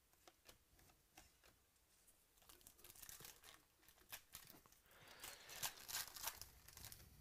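Foil wrapper of a 2017 Chronicles baseball card pack crinkling and being torn open by hand, loudest about five to six seconds in. Before it come a few faint clicks of cards being handled.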